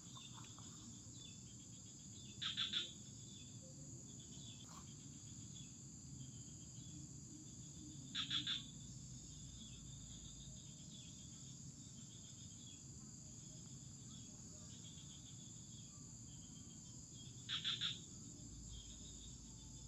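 Steady high-pitched insect chorus. Three short pulsed sounds, each about half a second long and louder than the drone, come several seconds apart.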